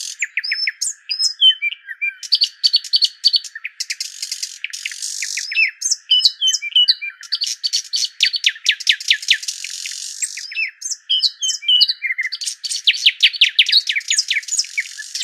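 Small birds chirping and twittering without pause: fast runs of short, downward-sliding chirps, several a second, mixed with warbled phrases and brief hissy notes.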